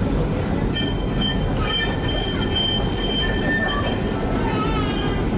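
Tram running on its rails, heard from inside the car: a steady low rumble, with a high wheel squeal that comes in about a second in, holds for about three seconds, and wavers in pitch near the end.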